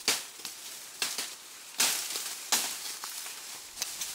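Footsteps crunching and crackling through dry fallen bamboo leaves, a handful of irregular steps.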